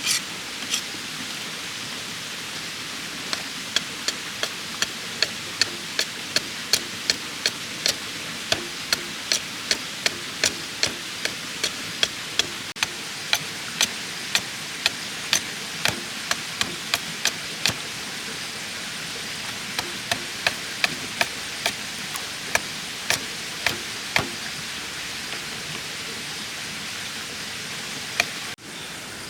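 Repeated light, sharp chopping knocks, about two a second, from a blade working bamboo, over a steady hiss. The knocks pause briefly midway and stop a few seconds before the end.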